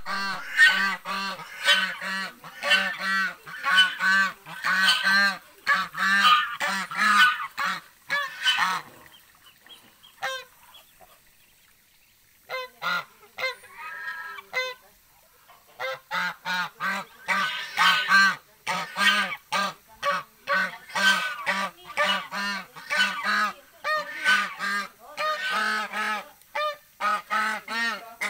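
Domestic geese honking in rapid, loud runs of two or three honks a second. The honking eases off to a few softer calls about nine seconds in, then starts up again about six seconds later and carries on.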